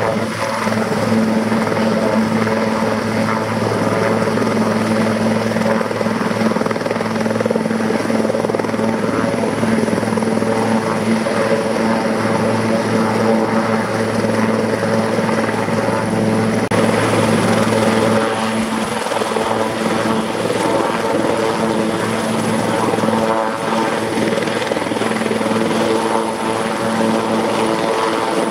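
Sikorsky S-76A helicopter running with its main and tail rotors turning while it taxis backwards: a steady multi-tone drone from its twin turbine engines and rotors, over a thin high turbine whine. The deepest part of the drone thins out about eighteen seconds in.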